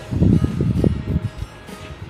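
Background music, heavy in the bass.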